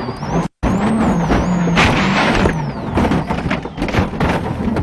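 Peugeot World Rally Car's engine running, then the car crashing off the road and rolling: a noisy crunch about two seconds in, followed by a quick series of knocks and scrapes as it tumbles.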